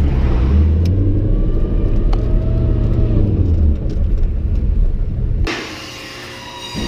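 Toyota 1UZ 4.0-litre V8 through a straight-pipe exhaust with no muffler, heard from inside the cabin while driving: a loud, low drone whose pitch rises and falls gently. About five and a half seconds in it cuts to a much quieter garage background with one short knock near the end.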